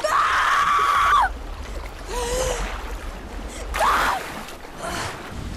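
A long, high, held cry in the first second, then shorter cries and gasps from people in floodwater, over the steady rush and splash of moving water.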